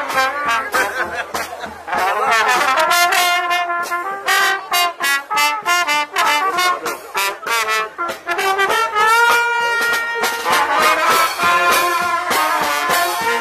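Brass band playing a tune, a melody of short notes with a few longer held notes.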